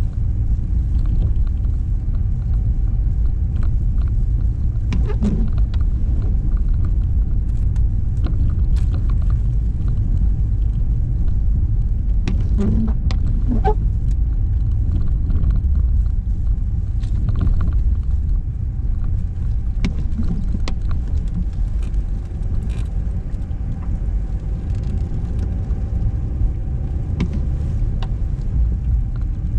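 A car driving, heard from the car itself: a loud, steady low rumble of engine and road noise, with a faint steady whine and scattered small clicks and rattles.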